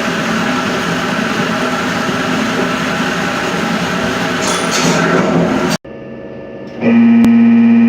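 Heavy machinery running with a dense, steady mechanical noise, which cuts off abruptly about six seconds in. About a second later, synthesizer music starts with a loud held chord.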